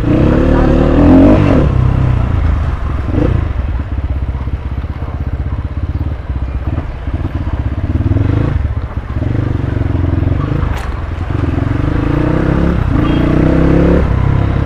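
Dirt bike engine being ridden slowly, the throttle opened and eased off over and over, so its note rises in short stretches of a second or so with brief dips between.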